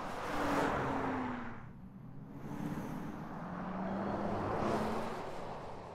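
BMW iX3 electric SUV driving past on a dirt track. The tyre and rolling noise swells twice, about half a second in and again near five seconds, with a low hum underneath.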